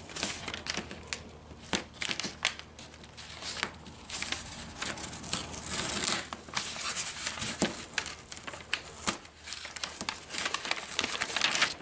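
Masking tape being peeled off painted foam while the newspaper masking crinkles and rustles as it is pulled away, in an irregular run of small crackles and tearing sounds.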